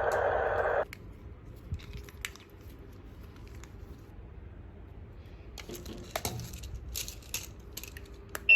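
Small electric motors of a toy remote-control stunt car whirring, cutting off abruptly under a second in. Then come light plastic clicks and rattles as the car is handled, and a short high beep near the end.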